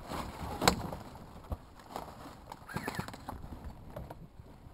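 Dry leaf litter crunching and clothing and gear rustling as someone moves and settles into a crouch, with a few sharp knocks, the loudest about a second in.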